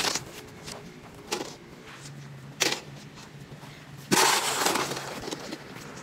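Footsteps crunching in snow: a few separate crunches, then a longer crunching stretch about four seconds in.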